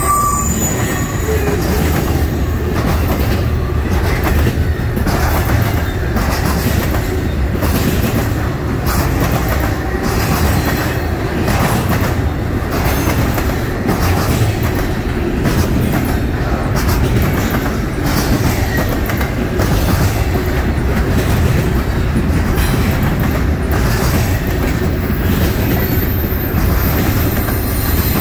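Double-stack intermodal freight cars rolling past at speed: a steady, loud rumble of steel wheels on rail, with repeated clatter as wheel sets pass over the rail joints.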